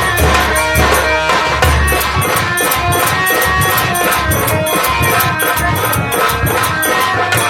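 Nautanki folk ensemble playing: deep drum strokes and jingling metal percussion in a fast, steady rhythm, with held notes from a melody instrument above.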